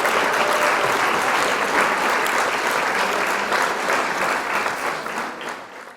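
Crowd applause, a dense patter of many hands clapping, fading out near the end.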